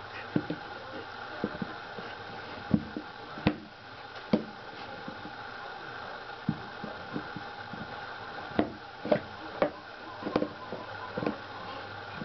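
Scattered soft knocks and taps at irregular spacing as a Samoyed and a kitten play-fight in a plastic toy-car pet bed, bunching together near the end, over a steady low hum.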